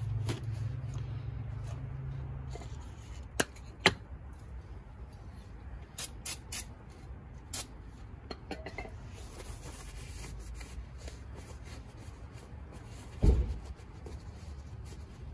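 Handling and cleaning a used scooter front fork leg with brake cleaner and a rag. A few sharp metal clicks and knocks as the fork is handled, a few seconds of faint spray hiss in the middle, and a dull thump near the end.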